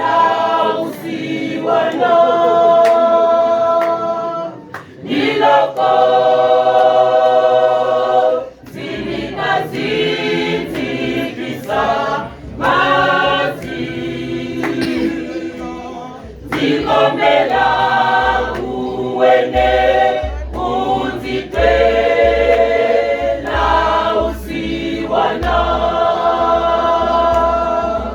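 Choir singing a cappella in several-part harmony, in phrases with short breaths between them. A low pulsing beat comes in underneath about eight seconds in and grows stronger in the second half.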